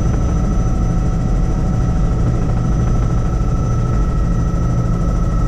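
Helicopter in flight: a loud, steady drone of rotor and engine, a heavy low rumble with a thin steady whine above it.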